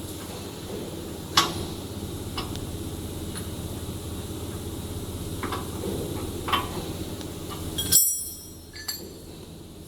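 Several sharp metal clinks and knocks over a steady low hum. The loudest clank, about eight seconds in, rings briefly, and the hum cuts off with it.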